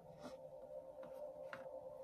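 Quiet ambient background music: sustained, held tones with a few faint ticks.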